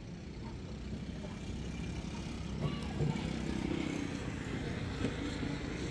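Go-karts running on a track: a steady engine hum that grows a little louder over the first few seconds as karts come closer.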